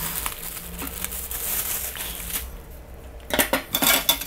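Clear plastic wrapping rustling around a folded metal light stand, then, about a second before the end, a quick run of metallic clinks and clanks as the stand is set down among the other folded metal light stands.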